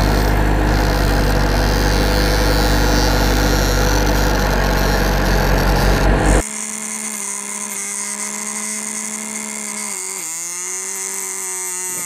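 A loud, steady engine-like motor hum that cuts off abruptly about six seconds in. A quieter, higher whine follows, whose pitch dips and wavers near the end.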